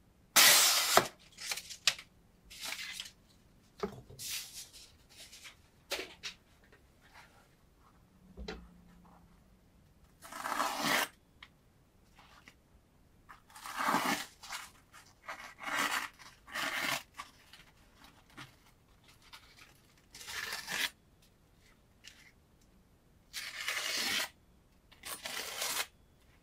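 Sharp Damascus-steel chef knife slicing through paper and paper towel: about a dozen short cutting and tearing swishes with pauses between them. The loudest is right at the start.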